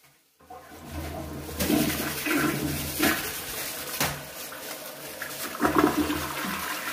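Toilet flushing: water rushes and swirls in the bowl, starting about half a second in and running loud to the end.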